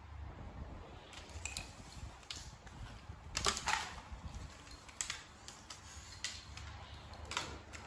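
Plastic toys being handled by a toddler and knocked against a tiled floor: scattered clicks and taps, the loudest a clatter about halfway through.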